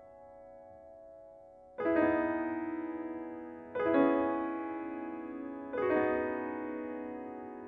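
Background piano music: near-quiet at first, then slow chords struck about every two seconds, each left to ring and fade.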